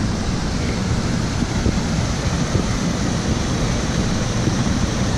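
Steady rushing of a small river tumbling over rocky cascades, with a low rumbling of wind buffeting the microphone underneath.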